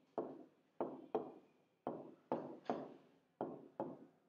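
A pen-type stylus tapping against the glass of an interactive whiteboard screen while writing: about nine sharp knocks, each ringing briefly, coming in irregular groups of two or three.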